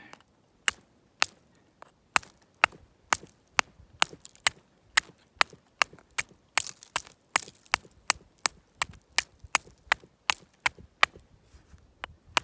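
Steel striking a chunk of quartz over and over to throw sparks: a long run of sharp, clicking strikes, two to three a second.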